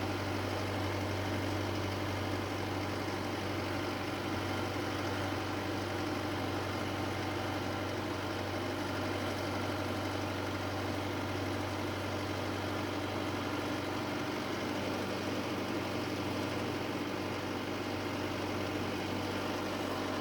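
Engine of the farm vehicle being driven, running steadily at low speed or idle with an even low hum that does not change.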